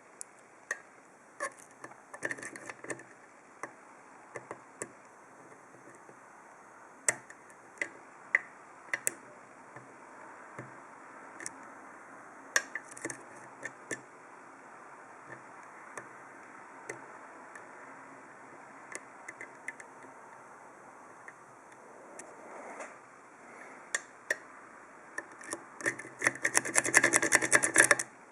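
Small sharp metallic clicks and scrapes of a flag pick probing the pins of an Abus D10 dimple euro cylinder under a Z-wrench's tension, a few clicks a second, turning into a dense, louder rattle of clicks near the end.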